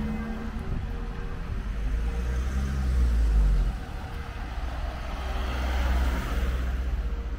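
Road traffic passing: a heavy low engine rumble that stops abruptly just before the middle, then a car's tyre noise swelling and fading near the end.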